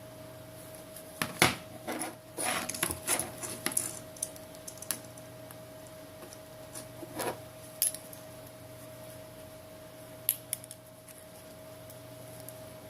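Small hand tools clicking, tapping and scraping against a Samsung Galaxy S7's glass and frame as the cracked display is pried up. One sharp click about a second and a half in, a quick run of clicks and scrapes around three seconds, then a few scattered ticks.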